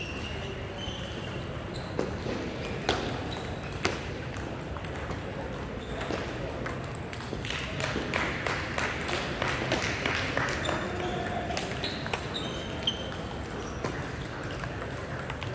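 Table tennis balls clicking off paddles and tables around a large hall, sharp scattered ticks with a denser run of clicks in the middle, over a low murmur of voices.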